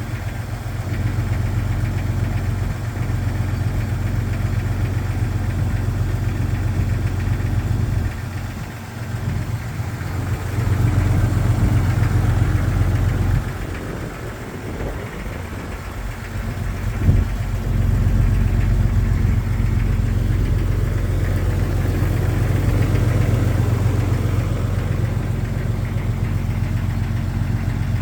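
1999 Jeep Cherokee XJ engine idling after a cold start, with the knock the owner takes for piston slap. The sound dips in level twice, and there is one sharp click about two-thirds of the way through.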